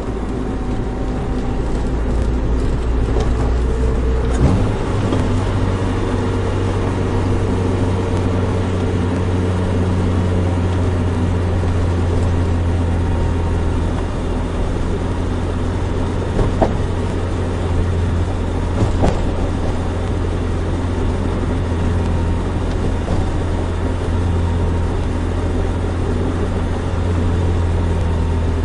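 Nissan Micra 1.3 running under way, a steady engine hum with road noise. The engine note steps up to a higher pitch about four and a half seconds in and then holds steady. A few short clicks or knocks come near the middle.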